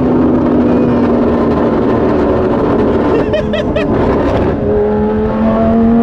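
Lamborghini Gallardo Super Trofeo Stradale's V10 with a straight exhaust, heard loud from inside the cabin while cruising on the freeway. It drones steadily at the start and again near the end, with a rougher, noisier stretch in between.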